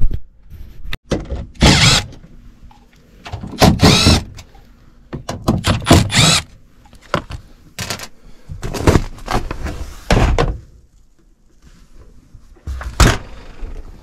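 Sheet-metal access panel of a heat pump air handler being worked loose and lifted off: a string of about six rattles, scrapes and thumps with short quiet spells between.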